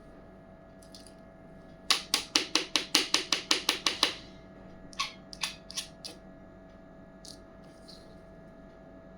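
A quick, even run of about a dozen sharp clicks, some five a second for two seconds, then a few scattered clicks: small hard pieces of a miniature toy kitchen set being handled.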